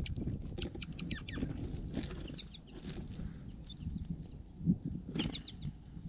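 Quick, high chirps and chips from small songbirds at a seed feeder, clustered in the first second and a half and again briefly near the middle and about five seconds in. Under them, a low steady rumble of snowstorm wind on the microphone.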